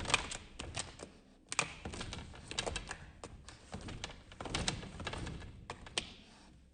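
A quick, irregular series of light clicks and taps, several a second.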